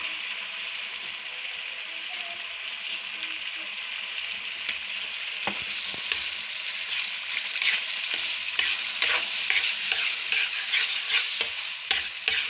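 Boiled urad dal frying and sizzling steadily in hot oil and tomato masala in a wok. A spatula scrapes and clacks against the pan as it stirs, more often in the second half.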